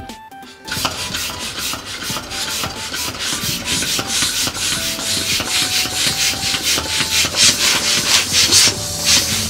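Rapid, loud rasping and rubbing strokes starting about a second in, over faint background music.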